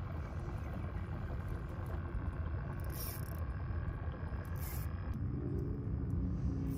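Steady low rumble of a pedal-driven kayak under way, the Old Town Sportsman's foot-pedal drive turning over water. About five seconds in, a steady mechanical hum joins it.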